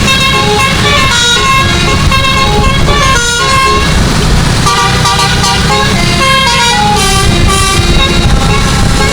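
12-note Basuri telolet musical air horn on a bus playing a melody, its pitched notes stepping up and down in quick succession, over a steady low rumble.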